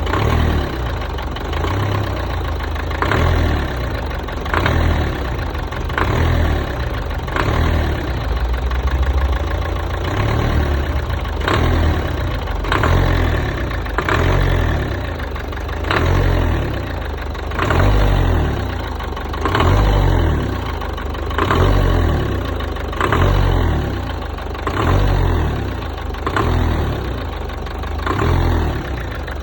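Renault 1.5 dCi four-cylinder turbodiesel (110 hp) revved in short blips about every one and a half seconds, between spells of idle. Each blip starts with a sharp clack: the clacking on acceleration that is the fault in question.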